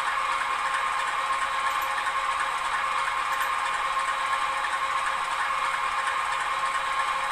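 Sound decoder of a TT-scale model diesel locomotive playing a diesel engine idling sound through its small loudspeaker, steady and unchanging while the locomotive stands still.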